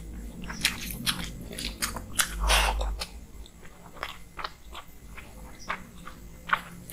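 Close-miked eating sounds: chewing with irregular wet mouth clicks over a mouthful of rice and hilsa fish curry, with fingers kneading rice on a plastic plate. The clicks are denser and louder in the first three seconds and sparser after.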